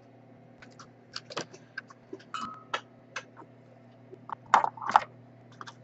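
Scattered light clicks and taps of small tools and parts handled on a repair bench, with two louder knocks about four and a half and five seconds in, over a steady low electrical hum.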